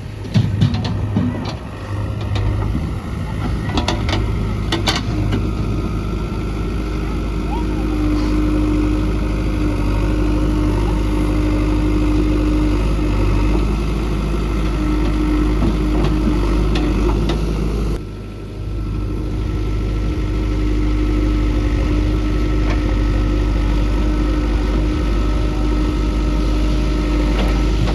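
Diesel engines of a JCB 3DX backhoe loader and tractors running steadily at work, with a few sharp knocks about four to five seconds in.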